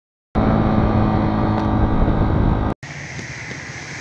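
A loud motor engine running with a low rumble, mixed with wind noise, starting suddenly and cutting off abruptly near three seconds in. After the cut comes a quieter steady noise of wind and distant traffic.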